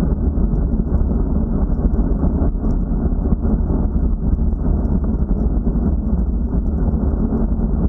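Wind buffeting an action camera's microphone on a bicycle riding at about 35 km/h: a steady low rumble.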